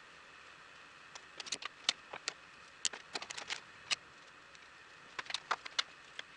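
Light, sharp clicks and taps of small hard objects being handled, in irregular clusters: a burst from about a second in to about four seconds, then another near the end.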